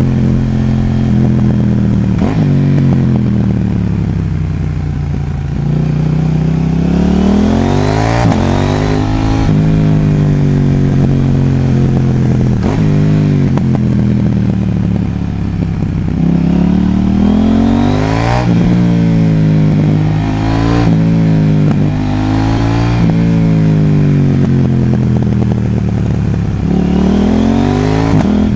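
KTM Duke 790's parallel-twin engine with a Mivv XM5 exhaust, under way. The engine note climbs under acceleration and drops sharply at each gear change, several times over, with easing off between the pulls.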